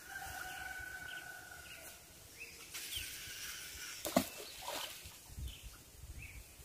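Distant rooster crowing, one long held call lasting about two seconds, followed by scattered short bird chirps and a single sharp knock about four seconds in.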